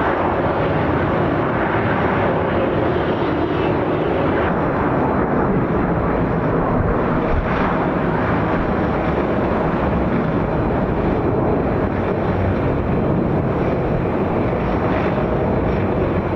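Airbus A319 airliner's twin jet engines at takeoff thrust, a loud, steady rushing noise of the departure.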